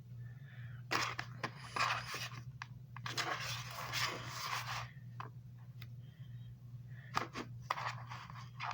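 Kinetic sand being scraped and pressed by hand, crunchy scraping strokes in three bunches with short pauses between, over a steady low hum.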